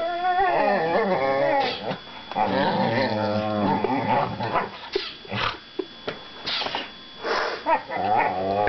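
Two young whippets growling and grumbling at each other in play while they mouth-wrestle. Long wavering growl-moans come first, then a run of short, sharp yips over the last few seconds.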